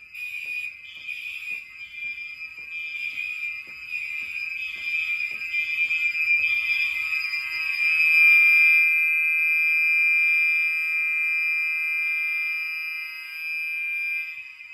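Several fire alarm horns of different generations sounding at once and not synchronized, their pulsing blasts overlapping unevenly. About eight seconds in, a steady continuous horn tone takes over and is the loudest sound.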